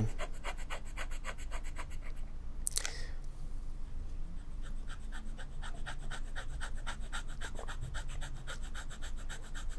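Double broad steel nib of a Nahvalur Nautilus fountain pen scratching rapidly back and forth on paper while shading in a patch of ink, at about six to eight strokes a second. The strokes pause briefly a little over two seconds in, with one short breath, then carry on.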